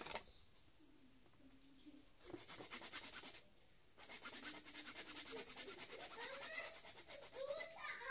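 A blade sawing in quick, even back-and-forth strokes, in two spells with a short pause about three and a half seconds in. Near the end an animal calls in wavering, rising-and-falling tones.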